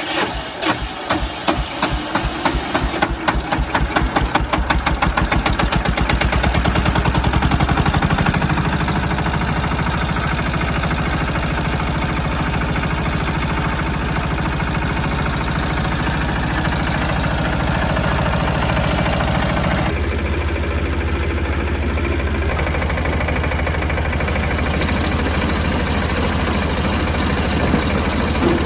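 Jiangdong JD300 single-cylinder diesel engine starting up. Its firing beats quicken over the first several seconds, then it runs steadily at speed, and its tone shifts about two-thirds of the way through.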